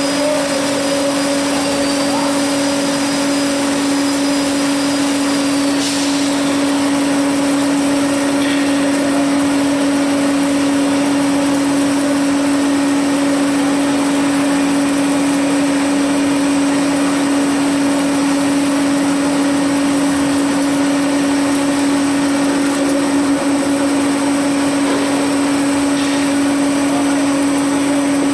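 CNC plate drilling machine running through a drilling cycle: a steady, loud motor hum with a strong low tone and a weaker higher one over a whirring noise. A faint high whine stops with a click about six seconds in.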